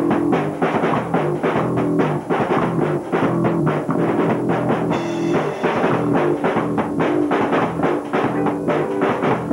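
A rock band playing: a drum kit keeps a steady beat under electric guitar and bass.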